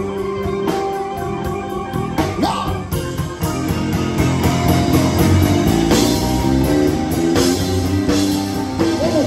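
Live blues-rock band playing: electric guitar, bass guitar, keyboard and drums.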